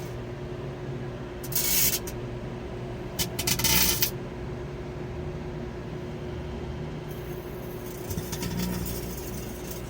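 Microwave oven running with a steady hum, broken by two bursts of crackling electrical arcing inside the oven, about a second and a half in and again around three seconds in, then fainter crackle later.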